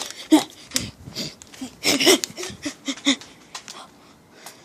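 Close rustling and handling knocks: a string of short sharp clicks and scuffs, densest about two seconds in, mixed with a few brief low vocal sounds.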